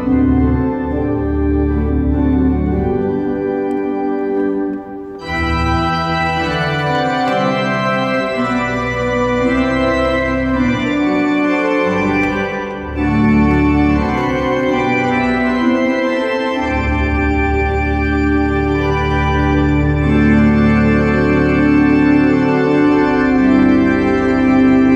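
Organ played with hands and feet: sustained chords on the manuals over a pedal bass line. There is a short dip about five seconds in, after which the sound is brighter and fuller, and another brief dip near the middle.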